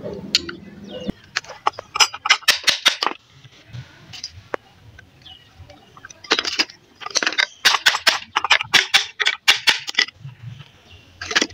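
Sharp metallic knocks and clicks from a washing machine motor being worked on by hand. They come in two quick runs, one about two seconds in and a longer, denser run from about six to ten seconds in.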